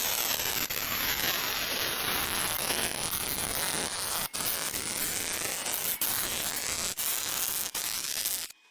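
Loud continuous hissing, rushing machine noise from a CNC lathe at work, broken by a few sudden short gaps, then cut off near the end.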